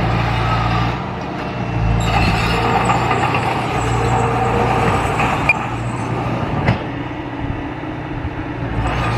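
Heavy diesel earthmoving machine running steadily, with two short sharp knocks in the second half.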